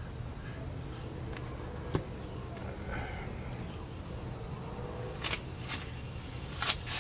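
Crickets chirping in a steady high trill, over a low steady hum. A sharp click comes about two seconds in, and a few short rasping noises near the end.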